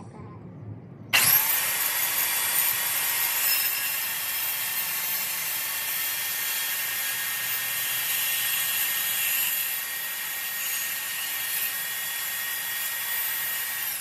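A power tool working wood runs loud and steady with a high-pitched hiss, starting abruptly about a second in.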